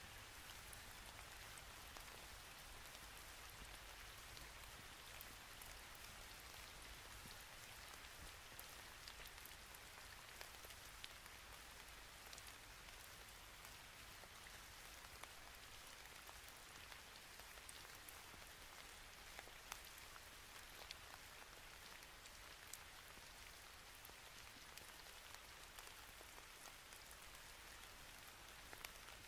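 Near silence: a steady faint hiss with scattered faint ticks.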